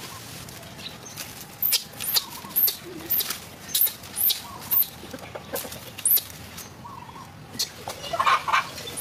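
A series of short, sharp, high-pitched animal calls, about two a second, followed near the end by a burst of lower, rapid clucking calls.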